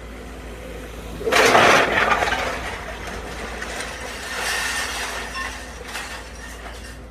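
Building debris crashing down as a heavy demolition machine tears into a house, over the machine's steady engine hum. A loud crash comes about a second and a half in and fades over about a second; a second, weaker clatter of falling rubble follows around four and a half seconds.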